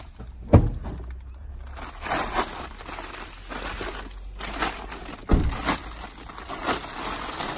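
Plastic sheeting and a plastic sack crinkling and rustling as they are handled and spread out, with two dull thumps, one about half a second in and another about five seconds in.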